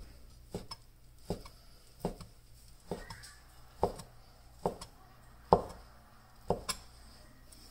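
Chinese cleaver chopping soaked dried mushrooms on a plastic cutting board: sharp knocks of the blade on the board, a little less than one a second.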